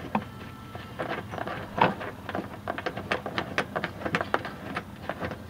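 Washer and nut being turned by hand onto a bolt through a window frame: rapid, irregular small clicks and ticks of metal parts.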